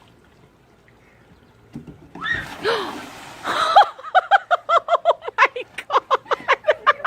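A splash of water together with a shout, then a person laughing hard in a rapid run of ha-ha-ha bursts, about five a second.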